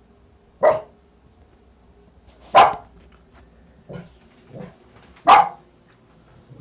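Small terrier-type dog barking: three loud single barks about two seconds apart, with two softer barks between the second and third.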